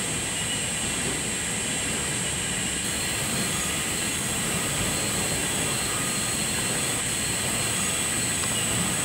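Packing-line machinery running: a belt conveyor and a rotary accumulation turntable, giving a steady, even mechanical noise with a constant high-pitched whine over it.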